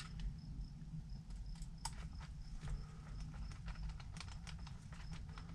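Irregular light clicks and taps of a hex wrench and small parts being handled while screws are snugged into an RC truck's plastic hub, with a faint high chirp repeating evenly about three times a second.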